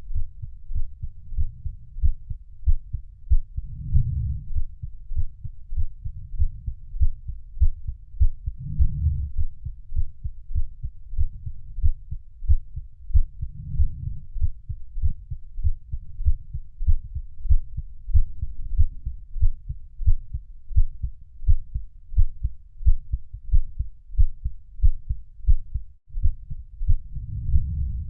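Heartbeat sound for sleep: a steady, regular train of low, dull thumps, with a deeper swell rising under the beats every few seconds. The sound drops out for an instant about two seconds before the end.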